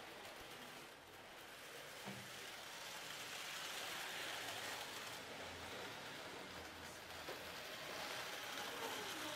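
Tinplate toy train and its tin coaches running on tinplate track: a steady rattle that grows louder as the train passes close.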